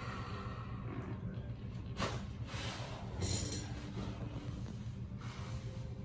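Chiropractic adjustment: a single sharp crack about two seconds in, followed by a few short rustling noises, the loudest about a second after the crack, over a low steady room hum.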